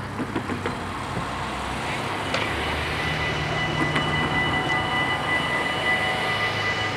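Warning bells of a Dutch automatic half-barrier level crossing ringing steadily over passing road traffic. The ringing comes in about two and a half seconds in, more bells join about four seconds in, and it signals that a train is approaching and the barriers are coming down.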